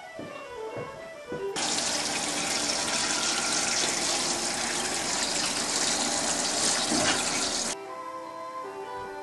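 Kitchen faucet running hard into a sink while a beer bottle is washed, an even hiss of water that starts abruptly about a second and a half in and cuts off suddenly near the end. Background music plays throughout.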